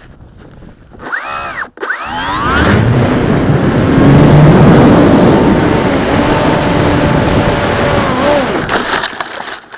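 An RC glider in flight heard through its onboard camera's microphone. Whistling tones glide up and down about a second in, then a loud steady rush of wind over the microphone takes over, with a faint whine underneath, and cuts off abruptly near the end.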